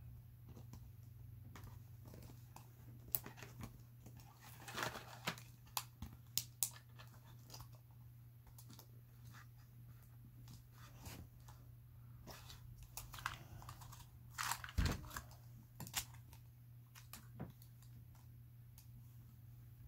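Hands handling a plastic dinosaur action figure and its cardboard and plastic packaging: scattered small clicks, taps and rustles, with a few sharper clacks about three, six and fifteen seconds in, over a faint steady low hum.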